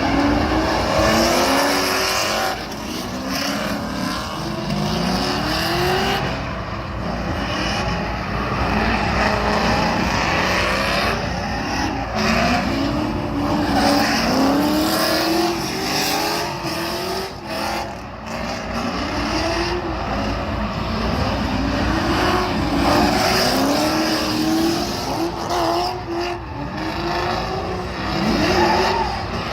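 Car engine revved up and down again and again, a rise and fall in pitch every second or two.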